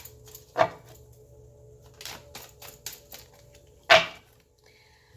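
Tarot cards being handled on a table: a run of light clicks and taps, with two sharper snaps about half a second in and near four seconds in.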